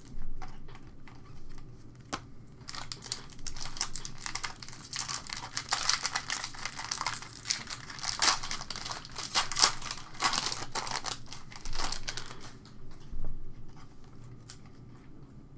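Foil wrapper of a trading-card pack crinkling and tearing as it is opened by hand. The crackling starts about two seconds in and runs for about ten seconds. Before and after it, softer rustling of cards being handled.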